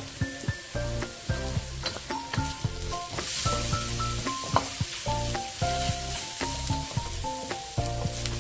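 Milkfish, onion and garlic sizzling in a steel wok as a wooden spatula stirs them, with quick scraping clicks of the spatula against the metal. A soft melodic music track with a steady bass plays underneath.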